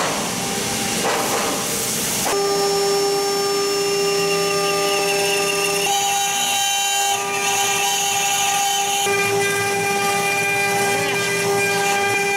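Spindle motors of a four-spindle CNC router with rotary axes running, a steady high whine with several overtones that sets in about two seconds in, while a bit cuts a square wooden blank turning on the rotary axis; a hiss lies under the whine.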